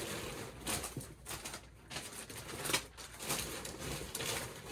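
Packing paper crinkling and rustling on and off as it is handled and stuffed into a cardboard box, with small sharp crackles.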